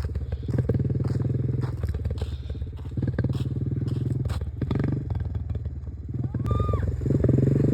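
Engine of a manual-shift vehicle running steadily while being driven, with clicks and clattering over it.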